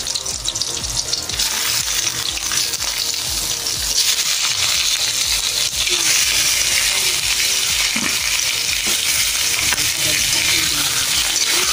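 Garlic and onion frying in hot oil in a wok with a steady sizzle. The sizzle grows louder about four seconds in, as raw chicken livers are added to the pan.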